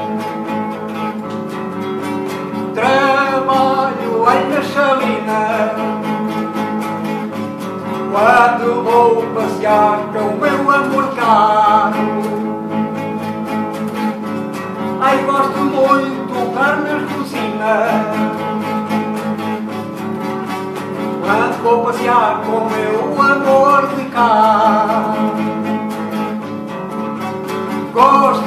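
Nylon-string classical guitar strummed steadily, with a man singing over it in phrases separated by short stretches of guitar alone.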